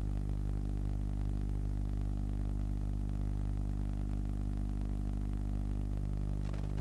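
A steady low electrical hum made of several even tones, over a faint hiss.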